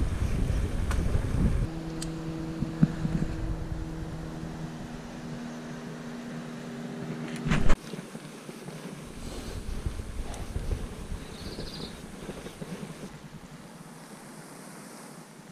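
Wind buffeting the microphone of a mountain bike rolling along a paved road, heaviest in the first couple of seconds. A steady buzzing hum sounds beneath it for several seconds and ends in a sharp knock about seven and a half seconds in.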